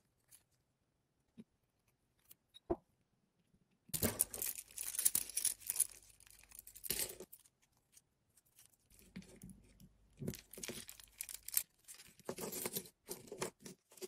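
Chunky acrylic chain links and metal keychain findings being handled, clicking and rattling against each other and the table in bouts, after a few faint clicks at first.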